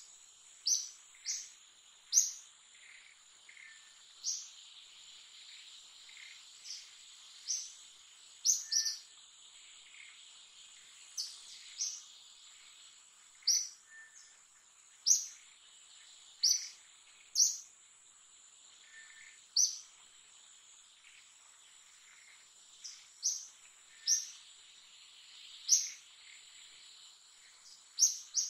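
Steady high drone of insects in the foliage, with short sharp high chirps breaking in irregularly every second or two.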